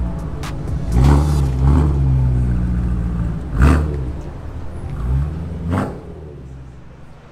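Hyundai i20 N's turbocharged four-cylinder engine on its stock exhaust, revving up in gear with the pitch dropping back at each shift, about three times, with a short sharp crack at the shifts. It eases off and fades near the end.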